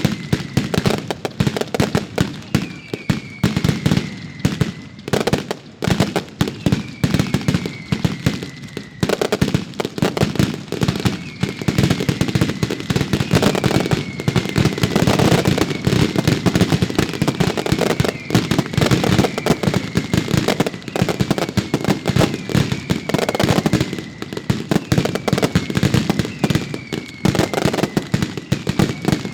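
Fireworks display: a dense, continuous barrage of firecracker-like bangs and crackle, with a short falling whistle recurring about every two seconds.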